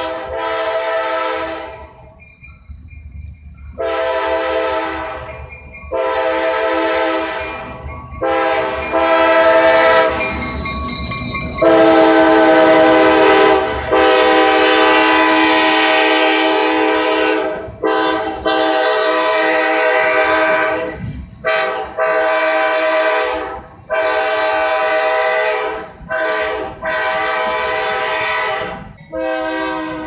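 Diesel freight locomotive's air horn, a Kansas City Southern de México unit, sounding a long series of steady blasts. Most blasts last one to three seconds, and one is held about four seconds near the middle. A low rumble of the locomotive and train passing close runs underneath.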